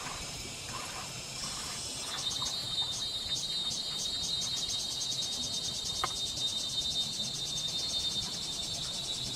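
Insects trilling: a high, fast, evenly pulsing chirr that swells about two seconds in and keeps going.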